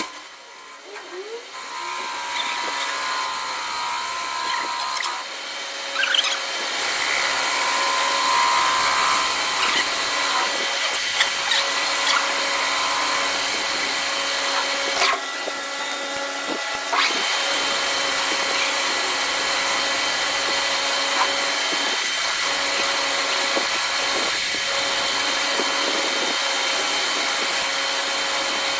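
Metal lathe running steadily with a constant machine hum and a high hiss, the sound changing briefly around five seconds in and again around fifteen seconds in.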